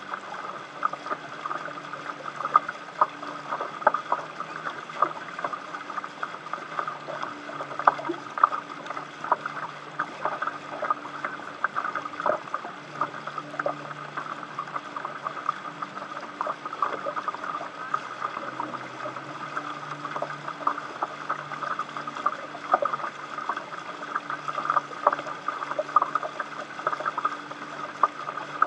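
Water splashing and lapping against the hulls of a catamaran under sail, with many small irregular slaps.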